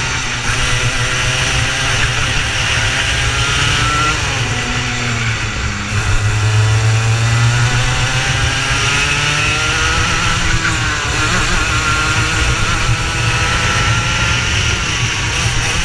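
Racing kart engines running at race pace, their pitch rising and falling as the karts accelerate and back off through corners, over steady wind and engine noise.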